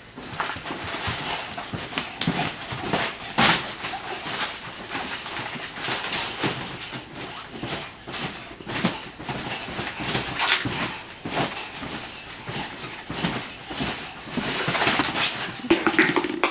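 Small net-enclosed trampoline being bounced and scrambled on by a puppy and a child: irregular soft thumps and rustles of the mat and net.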